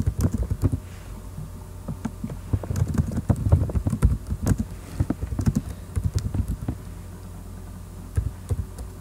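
Typing on a computer keyboard: irregular runs of key clicks, thinning out near the end, over a low steady hum.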